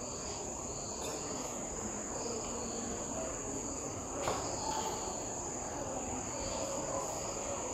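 A steady high-pitched drone like the chirring of crickets, with a faint knock about four seconds in.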